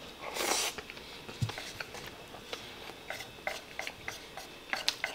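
Chopsticks clicking and scraping against a wooden plate as rice is gathered up, with a brief rush of noise about half a second in. The clicks come quickly and irregularly in the second half.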